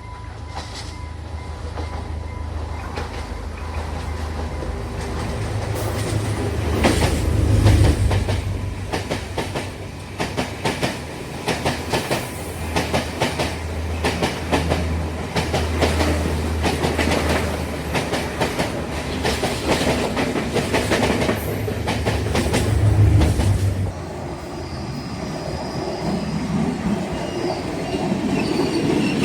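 A diesel train passing close by. Its engine hum builds to a peak about eight seconds in, then the wheels clatter over the rail joints in a fast, steady clickety-clack as the carriages go by. The engine sound cuts off about two-thirds of the way through, and faint wheel squeal is heard near the end.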